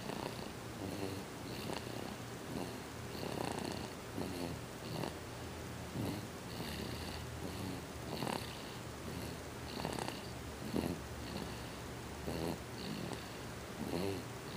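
Snoring: a continuous low rumble that swells with a louder breath every second or two.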